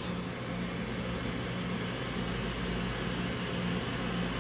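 Steady low hum with a faint hiss, the background drone of a room full of running equipment; no beeps or clicks.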